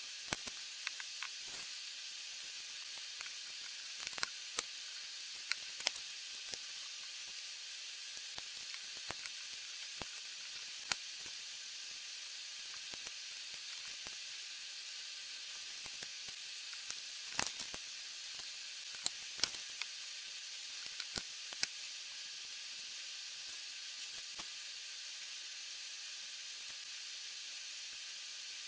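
Lego bricks clicking and clattering as they are handled and pressed together. The clicks are irregular and sharp, thickest a little past the middle, over a steady hiss.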